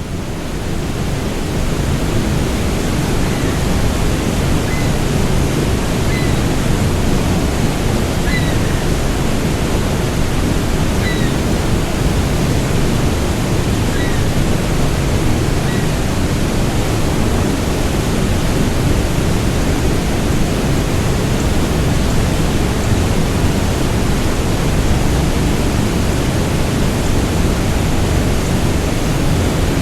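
Waterfall on Etobicoke Creek, swollen with spring snowmelt: a loud, steady, intense rush of falling water with a deep rumble under it. A few faint short chirps sound over it in the first half.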